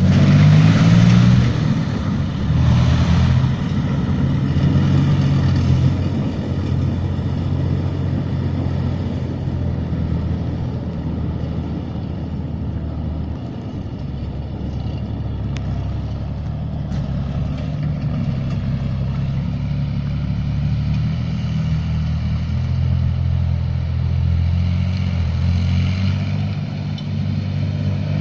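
BMP-1 infantry fighting vehicle's UTD-20 V6 diesel engine running as the tracked vehicle drives around. It is loudest in the first few seconds, fades as the vehicle moves away and rises again near the end as it comes back.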